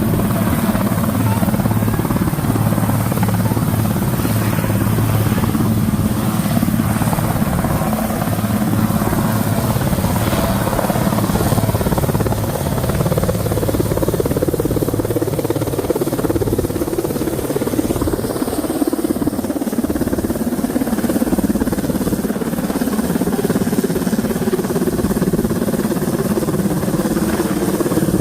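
An engine running steadily and loudly, its hum shifting to a higher pitch about halfway through.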